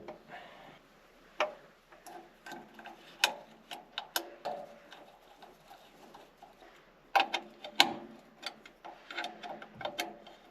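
Irregular light clicks and taps of small hand tools and metal parts while a distributor condenser is being swapped, several sharper clicks standing out among them.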